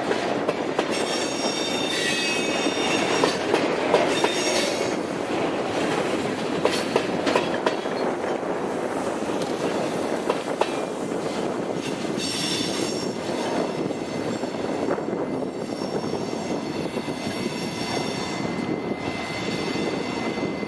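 Freight cars (covered hoppers and tank cars) rolling past on steel rails: a steady rumble with wheels clicking over rail joints, and high-pitched wheel squeal that comes and goes several times.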